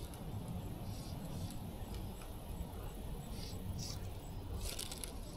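Fly line on a 3-weight fly rod swishing and rasping through the hand and rod guides in short strokes as line is stripped and cast, the longest swish near the end, over a steady low rumble.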